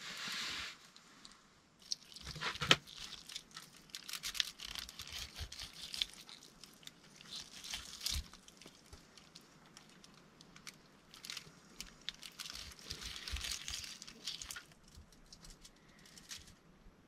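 Irregular close crackling and rustling, like tearing or crumpling, with many scattered sharp clicks and one loud snap about three seconds in.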